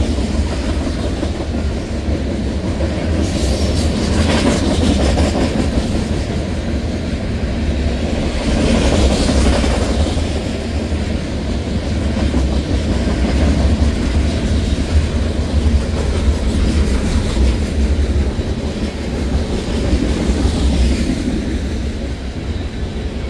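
Freight train of ethanol tank cars rolling past close by: a steady, loud rumble of steel wheels on rail, with a few brief swells of higher hiss along the way.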